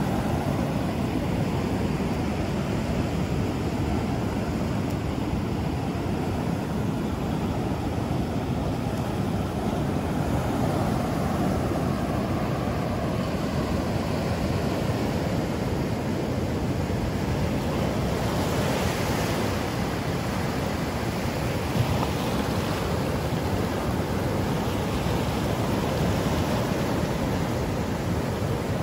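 Ocean surf washing onto a sandy beach as a steady rush, with wind on the microphone. One wave swells a little brighter about two-thirds of the way through.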